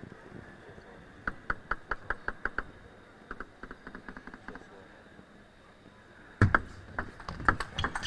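A table tennis ball bounced on the table about five times a second before a serve, then a sudden louder thump about six seconds in and the quick, sharp ball hits of a rally.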